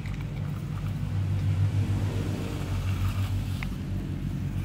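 An engine running steadily with a low hum, and a faint single click about three and a half seconds in.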